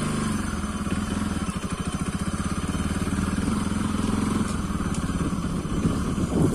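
Bajaj Pulsar NS200 motorcycle's single-cylinder engine running, its pitch wavering slightly with the throttle and briefly louder near the end.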